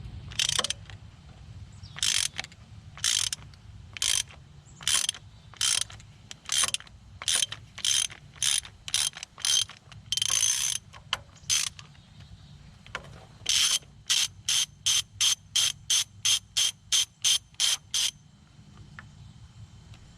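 A ratchet wrench loosening a spark plug, clicking in repeated short back-strokes. The strokes come about once a second at first, then quicker and quicker in a fast run about two-thirds of the way through.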